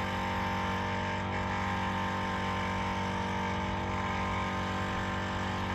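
Portable air compressor running steadily as it inflates a freshly plugged tyre, an even motor drone with no change in pitch.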